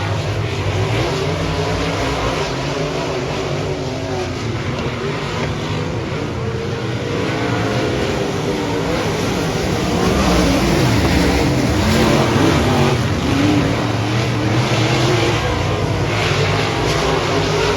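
Dirt-track race cars running on the track, several engines rising and falling in pitch as they accelerate and pass, a little louder about ten seconds in.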